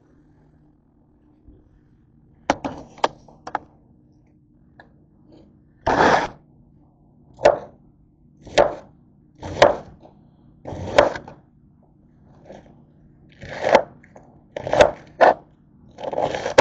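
Kitchen knife chopping through a raw cabbage on a cutting surface: about ten crunchy strokes, roughly one a second, beginning a third of the way in after a few lighter clicks.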